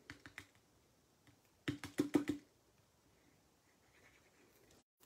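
Hands pressing and patting a layered paper panel down onto a black cardstock card base: a few light taps, then a quick run of about six sharper taps a little under two seconds in.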